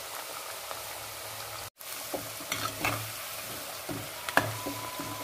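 Batter-coated potato slices deep-frying in hot oil with a steady sizzle. From about two seconds in, a metal spatula scrapes and clinks against the steel kadhai as the slices are stirred. Near the end one sharper clink rings on briefly.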